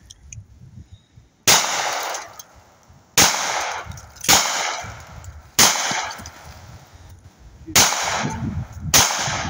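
Hi-Point .45 ACP carbine fired six times at an uneven pace, each shot a sharp crack with a short echo fading after it.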